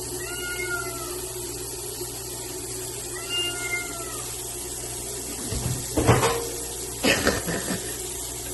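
A cat meowing twice, each meow about a second long and rising then falling in pitch. Two loud thumps follow, about a second apart, near the end.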